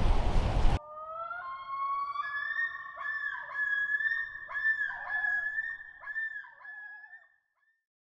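Loud wind noise on the microphone for under a second, cut off sharply. Then a short intro music sting follows: one gliding, wavering melodic line sliding between a few notes, fading out about seven seconds in.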